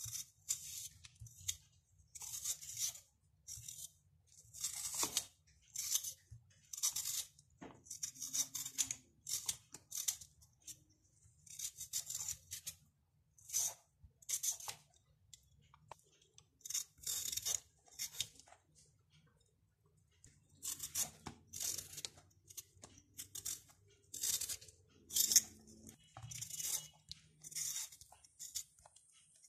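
Metal vegetable peeler scraping the skin off a raw potato in a run of short strokes, about one a second, each a brief rasping scrape.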